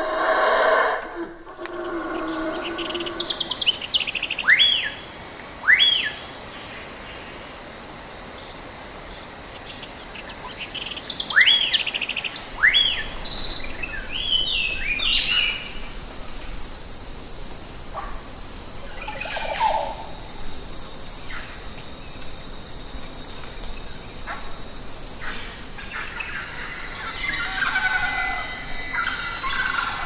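Birds calling over a steady high-pitched insect drone: loud, sharp calls that sweep upward in pitch come in pairs, around 4 to 6 seconds in and again around 11 to 13 seconds in, followed by a quick run of chattering calls. More calls return near the end.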